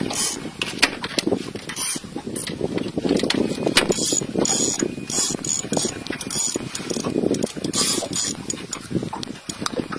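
Spinning fishing reel clicking and ratcheting in rapid, irregular runs while a fish is played on a hard-bent rod.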